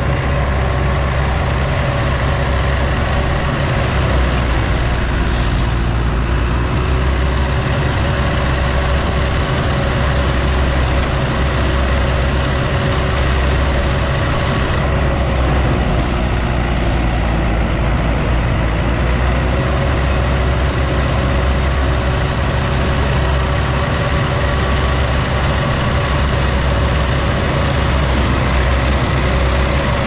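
Heavy farm machine's engine running steadily at a constant speed, with a strong low rumble.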